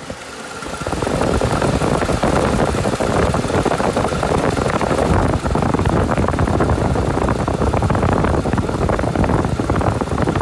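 VW 1.8-litre 20-valve turbo four-cylinder (AWM) engine idling steadily, heard from close over the engine cover and growing louder about a second in as the microphone nears it. It runs evenly, which the inspector judges to be running perfectly.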